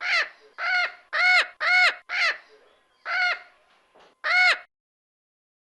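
Mexican parrot screaming: a run of harsh squawks, each arching up and down in pitch, five in quick succession, then two more after a short pause.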